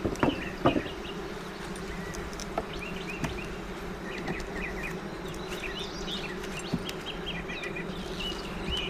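Honeybees buzzing steadily from an open hive as its frames are inspected, with two sharp knocks near the start.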